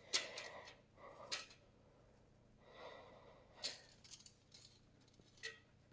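Faint handling noises from hand work on a sawmill head: a handful of short scrapes and clinks, a few with a brief high metallic ring.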